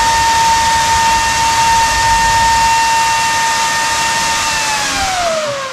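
A 24-volt BYD battery-pack cooling fan running flat out on about 28 volts: a rush of air with a steady high whine. About four and a half seconds in, the supply is turned down and the whine slides down in pitch as the fan spins down.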